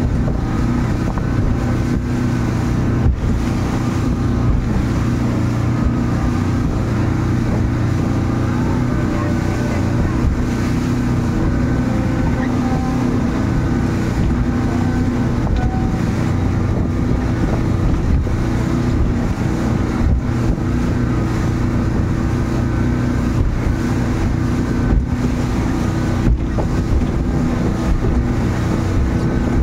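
Mercury outboard motor running steadily at speed under the load of a towed banana boat, with water rushing in the wake and wind noise on the microphone.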